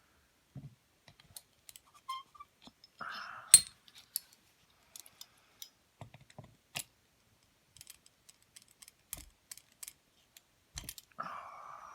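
Scattered light metallic clicks and taps as small parts are worked loose from a Suzuki RM250 two-stroke cylinder head with a screwdriver and set down. There is one sharper knock about three and a half seconds in, and a short scraping sound then and again near the end.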